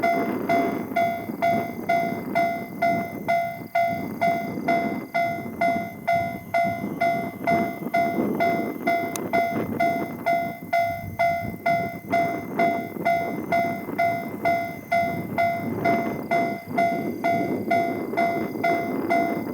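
Japanese railway level-crossing alarm sounding: the JR standard electronic 'kan-kan' bell tone, struck over and over in an even, steady rhythm. The tone is distorted and clipping.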